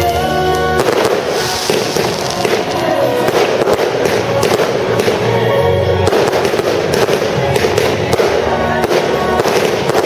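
Fireworks display with a dense, continuous crackling and popping of many small effects, with music playing alongside.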